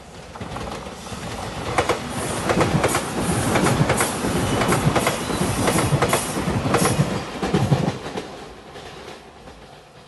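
Five-car electric limited express train approaching and passing close by, its wheels clacking over the rail joints in a quick run of clicks. It builds up, is loudest in the middle, and fades as the train moves away.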